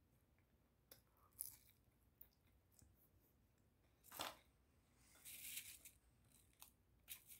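Faint eating and food-handling sounds: scattered crunches and clicks of chewing, the loudest about four seconds in, and a rustle lasting about a second just after that.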